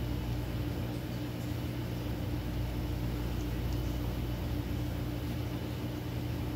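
Motorized display turntable running, a steady low electric hum that doesn't change.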